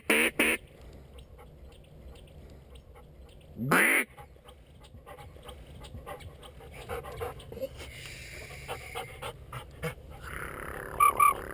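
Hand-held duck call blown in quacks: two short quacks at the start, one louder, longer quack about four seconds in, softer calls and clicks later, and two short quacks near the end.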